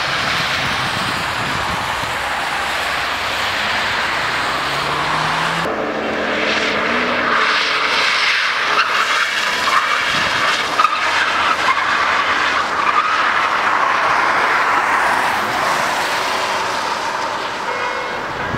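Sedan drifting on a wet highway: the engine revs up with rising pitch while the tyres hiss and squeal as the car slides. The sound changes abruptly about six seconds in, after which the tyre squeal is louder.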